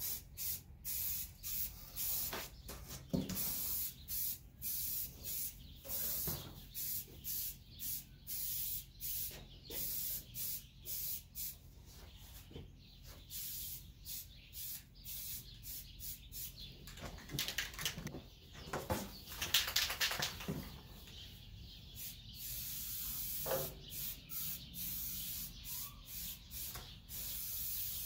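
Aerosol spray can of rust primer hissing in short repeated bursts, about two a second, as it is sprayed onto steel.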